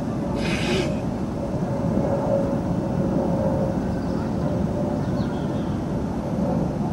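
Steady low mechanical rumble with a constant hum, and a brief papery rustle of a sketchbook page about half a second in.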